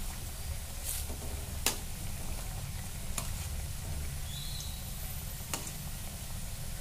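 Puffed-rice fritters sizzling steadily as they deep-fry in hot oil in a steel kadai, while a steel slotted spoon turns them, clicking against the pan a few times.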